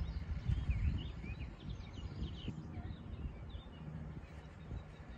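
Small birds chirping and twittering in quick short calls throughout, over a low outdoor rumble that is loudest about a second in.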